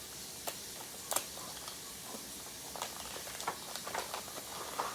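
Scattered light taps, clicks and faint rustles of hands working kinetic sand and small plastic decorations, at an irregular few per second.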